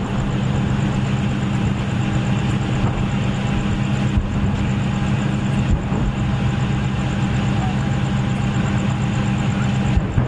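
A steady low engine drone with a few short, dull low thumps.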